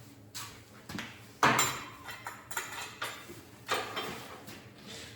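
Metal clanks and knocks as an engine is worked into a car's engine bay, a hard clank about a second and a half in, followed by lighter knocks and scrapes.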